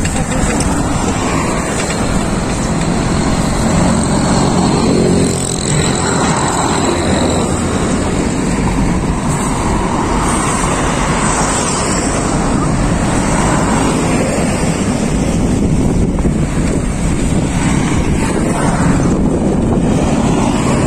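Road traffic on a busy street: cars driving past one after another, each swelling and fading, over a steady low rumble of wind on the microphone from riding a bicycle.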